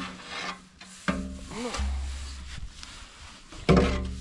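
Irrigation siphon tube being primed with a plunger: rubbing, sucking strokes with squeaks, two strong strokes about a second in and near the end.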